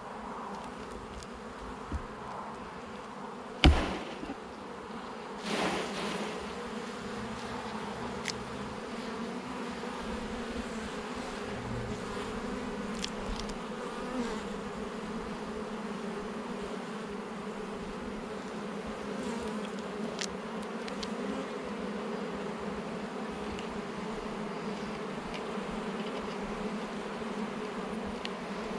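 Honeybee colony humming steadily from an open hive during an inspection. A sharp knock comes about four seconds in and another about five and a half seconds in.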